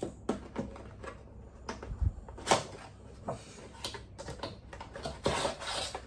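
Toy packaging being handled and opened: irregular sharp clicks, snaps and rustles of plastic and cardboard, with a louder snap about two and a half seconds in.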